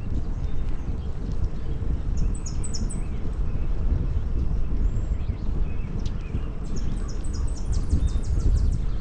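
Steady low rumble of riding a bicycle along a paved path, with wind buffeting the camera microphone. Songbirds call in quick, high-pitched series of short notes, about two and a half seconds in and again near the end.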